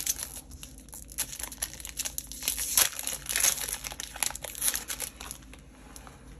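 Magic: The Gathering booster pack wrapper crinkling and rustling as it is handled, in irregular bursts that thin out near the end.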